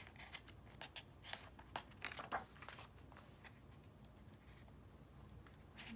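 Faint paper rustling and small clicks over the first three seconds or so, as a picture book's page is turned.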